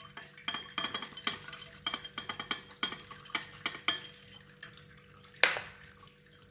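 Small rice balls rattling out of a small glass bowl into a glass bowl of melted white chocolate: a quick run of light clicks and small glassy clinks for about four seconds. One louder knock comes about five and a half seconds in.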